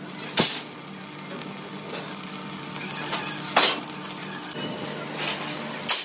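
Steel fabrication shop noise: three sharp metal knocks, the loudest near the end, with a few lighter taps between, over a steady hiss and a low machine hum.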